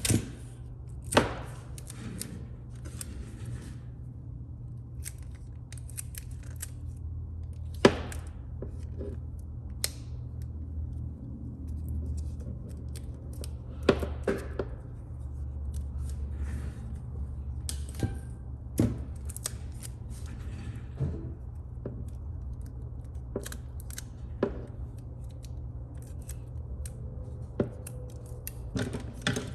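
Scattered sharp clicks, snips and short scrapes of small hand tools working on a phone, over a steady low hum. The loudest clicks come right at the start, about a second in and about eight seconds in.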